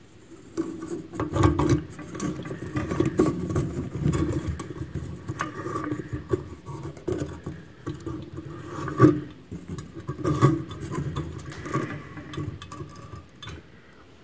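A plastic pendant-light adapter being screwed by hand into a recessed can light's bulb socket, with its cord handled: irregular scraping, rubbing and clicking of plastic against the fixture, starting about half a second in and stopping near the end.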